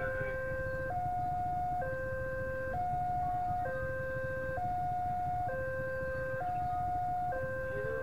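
Railway level-crossing warning signal sounding an electronic two-tone alarm, a lower and a higher tone alternating, each held just under a second. It is the warning that a train is approaching the crossing.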